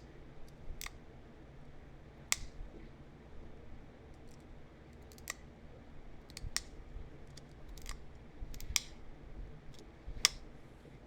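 Pressure flaking on a small heat-treated chert point: sharp, separate clicks every second or so as small flakes snap off the stone's edge under a pressure flaker.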